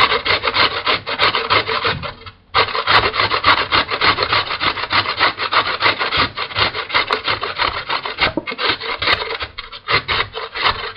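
A carrot being grated on a large metal grater, rapid rasping strokes back and forth, with a brief pause about two seconds in and a shorter break near the end.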